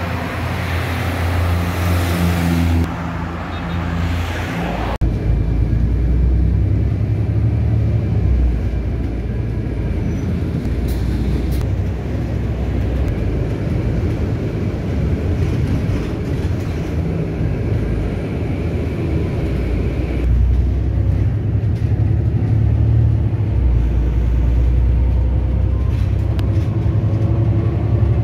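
City bus driving, heard from inside the cabin: a steady low engine and road rumble. A brighter hiss of road traffic over the first few seconds cuts off suddenly about five seconds in.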